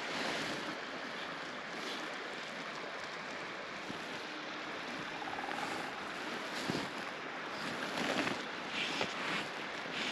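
Steady rush of a river's current running over shallow broken water, with a few short rustles near the end.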